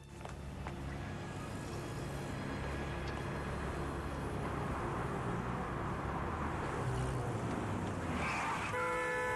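City street traffic: cars driving past in a steady wash of engine and tyre noise that slowly grows louder. A held, pitched tone comes in near the end.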